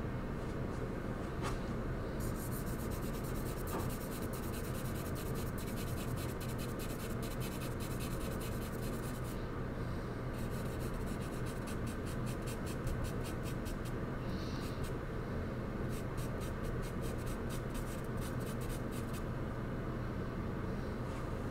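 Charcoal scratching on paper in quick, even shading strokes, in two long stretches with a short pause about nine seconds in, over a steady low background hum.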